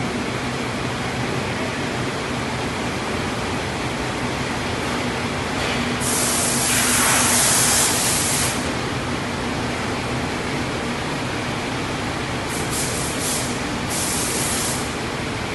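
Steady hissing noise throughout, with a louder hiss lasting about two and a half seconds near the middle and a quick run of short hisses near the end.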